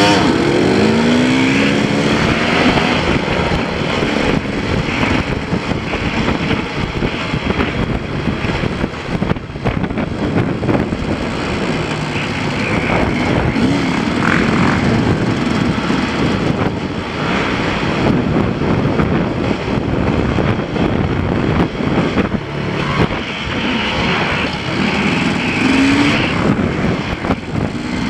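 A KTM two-stroke enduro motorcycle riding down a dirt trail, its engine revving up through the gears in the first few seconds and then running on under varying throttle. Wind buffets the helmet microphone throughout.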